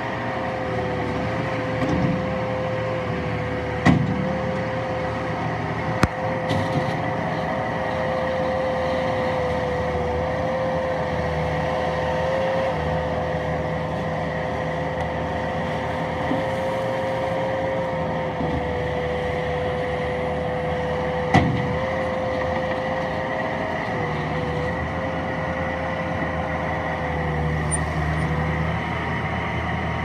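Bobcat T190 tracked skid steer loader's diesel engine running steadily with a steady whine, working gravel with its bucket. A few sharp knocks stand out, about four times.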